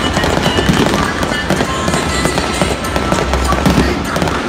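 Aerial fireworks bursting, with rapid, dense crackling and popping throughout, over Disney theme music.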